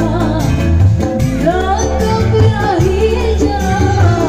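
Live dangdut band music played loud through a PA: a female voice singing a melody over a steady pounding bass beat, with hand drums and keyboard.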